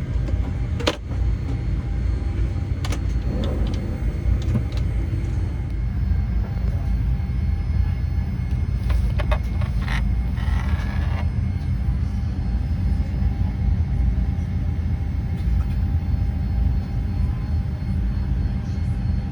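Steady low rumble of a Boeing 787-9 airliner cabin, with a few light clicks early on and a short rustle about ten seconds in.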